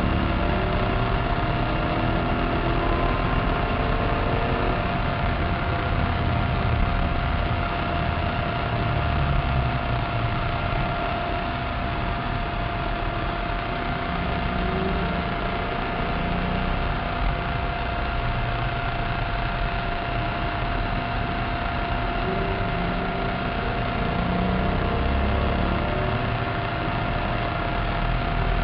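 Maserati Cambiocorsa's 4.2-litre V8 and road noise heard from inside the cabin while lapping a circuit, swelling and easing with the throttle. A thin steady high whine sits beneath it.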